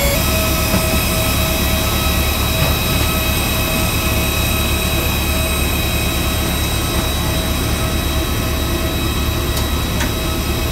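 Steady jet-turbine whine on an airport apron: several high tones held over a low rumble, typical of an aircraft's turbine or auxiliary power unit running beside the parked Airbus A320. Two light clicks come near the end.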